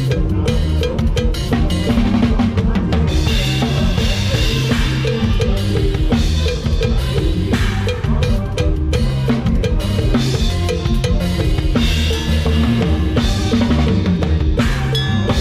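Drum kit played live in a lam sing (Isan folk-pop) band: kick drum, snare and rimshots keep a steady driving beat over the band's bass and melody.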